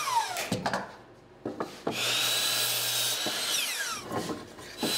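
Metabo HPT miter saw crosscutting pine 2x4s. The motor winds down with a falling whine, then come a few knocks as the board is shifted. About two seconds in the saw starts again and runs steadily through a cut for about a second and a half, then winds down again. More knocks follow, and the saw starts once more at the very end.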